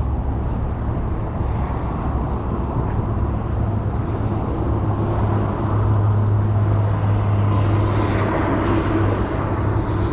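Road traffic on a causeway bridge: a steady low rumble of passing vehicles, with a few short hisses near the end.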